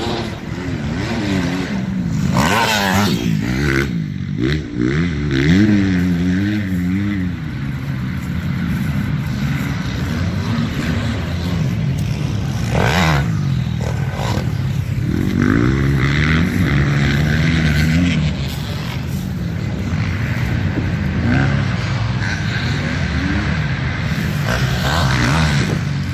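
Dirt bike engine revving up and down as a motocross bike rides the track jumps, its pitch rising and falling over and over, with two brief rushes of noise about three and thirteen seconds in.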